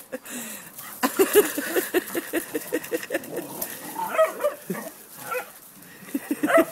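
Dogs in rough play giving a rapid run of short barks, with higher yipping and whining calls about four seconds in.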